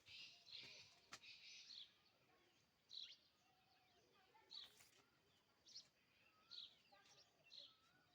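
Faint birdsong: short high chirps recurring about once a second, with softer twittering between.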